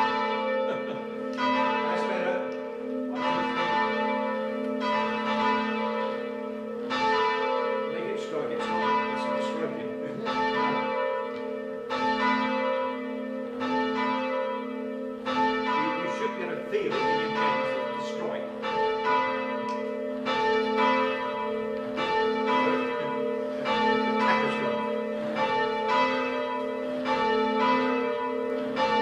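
Three church bells rung by learner ringers on their ropes, swung short of full circle, each stroke of the clapper following the last about once a second over a continuous hum from the bells. The bells are swinging high enough that the ringers start to lose the even strike.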